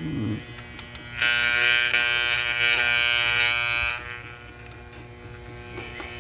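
Vintage Hamilton Beach electric hand mixer's motor buzzing loudly for about three seconds, then dropping to a quieter hum; the motor is straining against stiff gears that will not turn the beaters freely.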